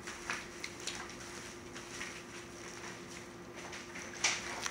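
Hands mixing and kneading homemade glue slime: soft, scattered squelching clicks, with one sharper snap about four seconds in, over a faint steady hum.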